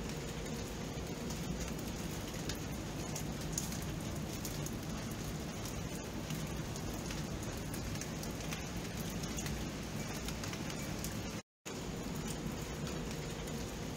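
Steady rain at night: an even hiss with scattered drop ticks. The sound cuts out completely for a split second about eleven and a half seconds in.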